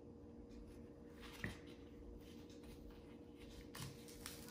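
Faint rustling of a paper plate and yarn being handled, with a couple of light taps, over a low steady hum.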